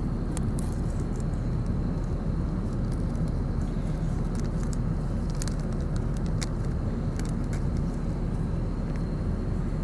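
Steady low rumble of an airliner cabin in cruise flight, with a few faint clicks.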